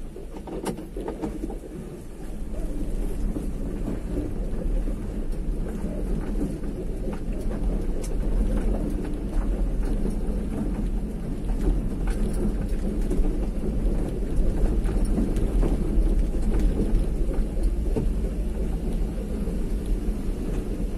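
Road noise of a vehicle being driven: a steady deep rumble, picked up by a phone's microphone, with scattered small clicks and knocks. It gets louder about two seconds in.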